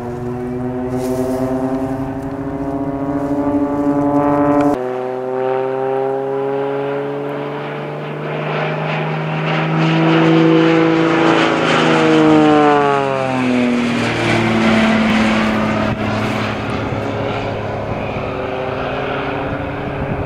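Propeller engines of Extra 300 aerobatic aircraft droning in display flight, the pitch rising in the first few seconds. The sound changes abruptly at about five seconds, and the pitch falls steeply around twelve to fourteen seconds as the aircraft pass, then steadies.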